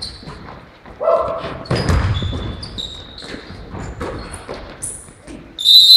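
Basketball game in a gym: the ball bouncing on the floor and sneakers squeaking in short high chirps, the loudest squeak near the end.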